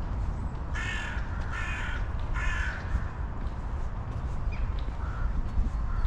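A crow cawing three times in quick succession, starting about a second in, over a steady low rumble.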